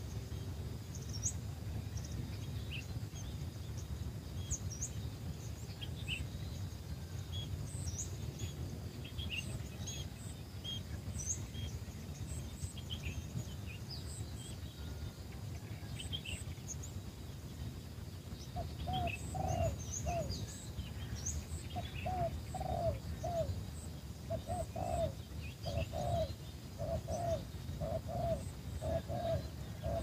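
A dove cooing in a fast run of short, repeated low notes, starting a little past halfway and going on in phrases, against high chirps of small birds throughout and a steady low rumble.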